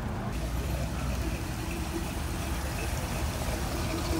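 A vehicle engine idling, a steady low rumble.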